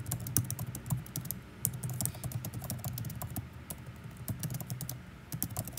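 Typing on a keyboard: quick, irregular keystroke clicks.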